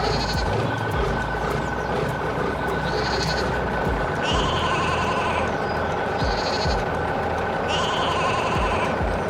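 Repeated bleating animal calls, about five short high-pitched cries spaced every one and a half to two seconds, over a steady low hum.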